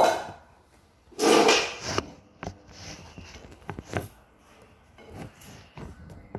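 Handling noises while sugar is spooned from a plastic tub: a loud scuff about a second in, then a string of light clicks and taps from a metal spoon against the tub.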